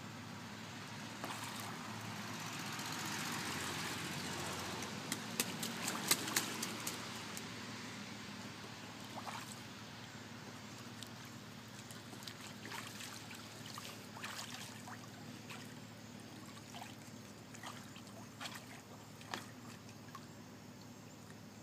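A white domestic goose splashing in a plastic paddling pool as it dips its bill and dabbles, with water trickling and dripping. A burst of splashes comes about five to seven seconds in, followed by scattered small splashes and drips. A soft rushing sound swells and fades over the first few seconds.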